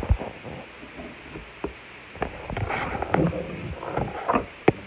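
Cardboard box handled close to the microphone while its packing tape is picked at: scattered sharp knocks and taps, with bursts of scraping and rustling in the middle and near the end.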